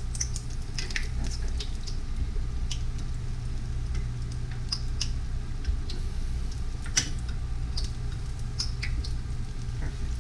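Egg-battered chiles rellenos frying in oil in a skillet: scattered crackles and pops of spattering oil, with clicks of a slotted spatula and fork against the pan and one sharper click about seven seconds in, over a steady low hum. The cook judges the oil not quite hot enough.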